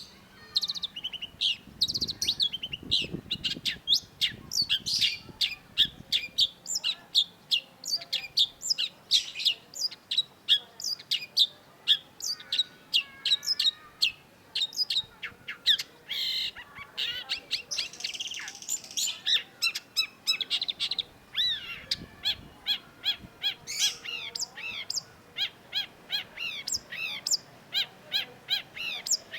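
Long-tailed shrike (cendet) singing a continuous, fast run of sharp chirps and whistled notes, several a second, with a short harsh, scratchy passage about halfway through.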